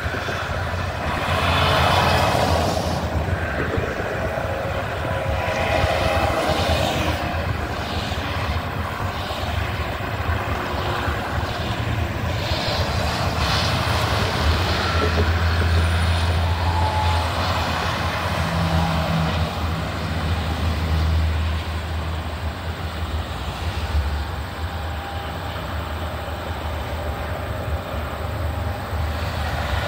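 Highway traffic: semi-trucks and cars passing at speed, tyre noise swelling and fading as each goes by, over a low diesel engine drone that is loudest about halfway through as a semi passes close.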